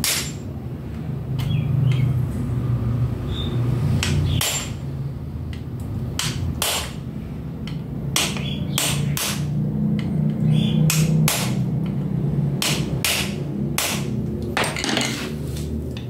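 A hammer striking the end of a screwdriver held against a metal part, used as a punch or drift to knock something loose. More than a dozen sharp, irregular blows, some in quick pairs.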